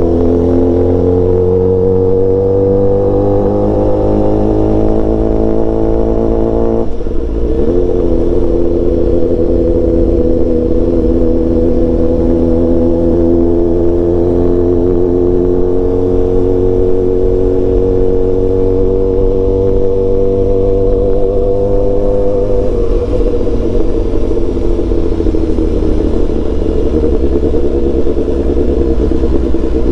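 BMW S1000XR's inline-four engine pulling gently in a low gear: its note climbs slowly, drops sharply at an upshift about seven seconds in, climbs again, then falls back and holds steady for the last several seconds.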